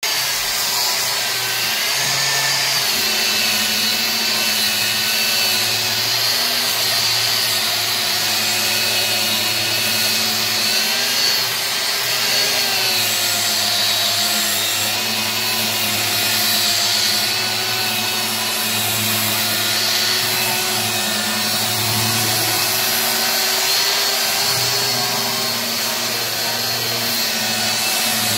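Electric angle grinder with a sanding disc running steadily while it sands a wooden board, its motor whine wavering slightly in pitch as the disc is pressed and swept across the wood.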